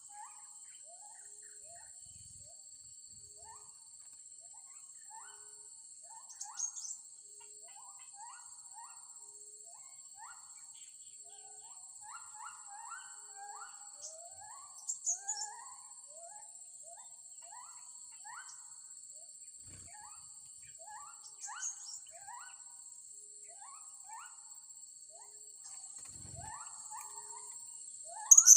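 Blue-crowned hanging parrots chirping over and over in many short rising calls, with a few sharp, shrill calls, the loudest near the end. A steady high insect drone runs underneath.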